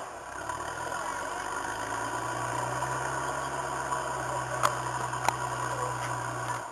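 Nissan GQ Patrol's engine running steadily at low revs on a steep rock climb, with two sharp knocks about half a second apart near the end.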